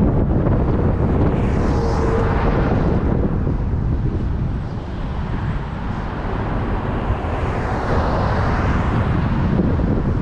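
Wind buffeting the microphone of a camera moving along a road, a dense low rumble mixed with road and traffic noise. The higher hiss swells twice, about two seconds in and again around eight seconds.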